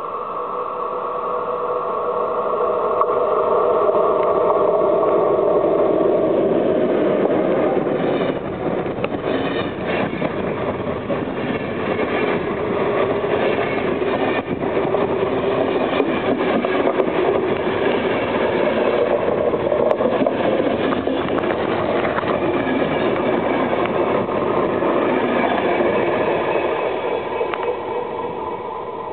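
ZSSK class 350 'Gorila' electric locomotive approaching and passing with a steady whine, then a long train of passenger coaches rolling close by, wheels clicking over the rail joints. The sound fades near the end as the train draws away.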